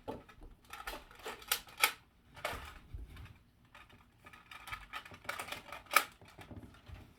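A run of irregular sharp clicks and light knocks of hard objects, the loudest about two seconds in and again about six seconds in.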